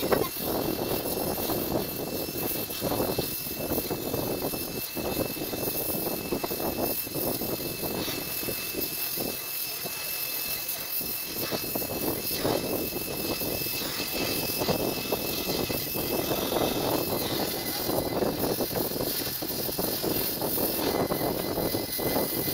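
Gas welding torch flame burning with a steady hiss as a filler rod is fused into a seam on a steel motorcycle silencer.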